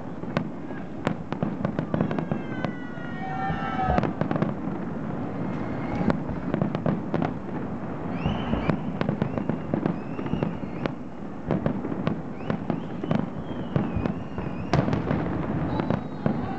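Fireworks display: aerial shells bursting in a dense, continuous run of bangs and pops. High whistling tones come and go over the bangs, a falling series early on and a held whistle from about eight seconds in.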